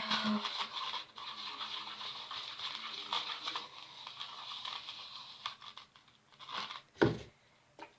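Baking soda being stirred into contact lens solution in a bowl, a steady scratchy rustle that fades after about six seconds, followed by a sharp knock about seven seconds in.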